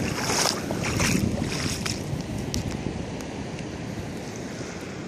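Light sea waves washing over a shallow beach, a steady noisy wash, with wind on the microphone and a few short crackles in the first couple of seconds.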